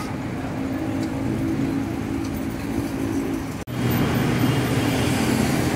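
Steady road traffic: car and bus engines humming and tyres on a busy multi-lane avenue, with a momentary break about two-thirds of the way through.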